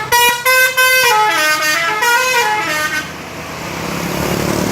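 Bus telolet multi-tone musical horn on a Bejeu super-high-deck coach playing its melody: two held chords, then a quick run of stepping notes, about three seconds in all. After that the bus's engine and road noise build steadily.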